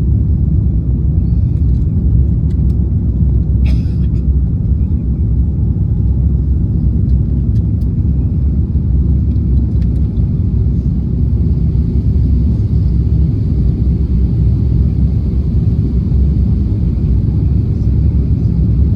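Steady low rumble of an airliner cabin in flight: engine and airflow noise held at an even level.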